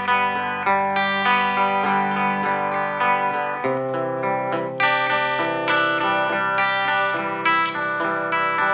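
Electric guitar, a Telecaster with Gotoh titanium compensated saddles, played through a 5F1 Champ clone tube amp with a 12-inch Jupiter ceramic speaker. It picks arpeggiated chords with the notes ringing into each other, and the chord changes about three and a half seconds in.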